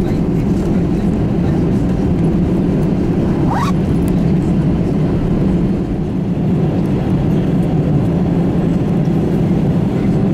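Cabin noise of an Airbus A320 taxiing after landing: a steady low drone from the engines at idle and the rolling airliner, with one brief rising squeak about three and a half seconds in.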